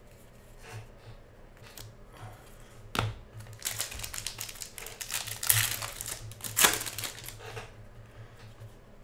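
Foil wrapper of a Panini Contenders basketball card pack being torn open and crinkling in the hands, starting with a sharp click about three seconds in and crackling on for about four seconds.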